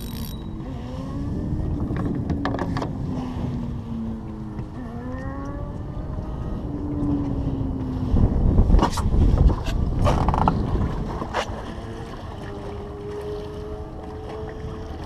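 A boat motor running, its pitch slowly drifting down and up, over a low rumble of wind and water, with a few sharp clicks. The rumble surges louder for a couple of seconds about nine seconds in.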